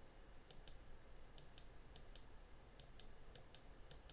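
Faint computer-mouse button clicks, mostly in quick pairs about a second apart, as the cursor accepts through a series of on-screen prompts.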